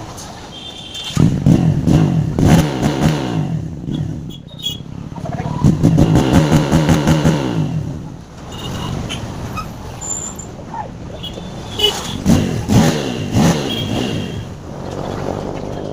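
Vehicle exhaust (silencer) revved in three bursts, each rising and falling in pitch over a couple of seconds, with brief high chirps between them.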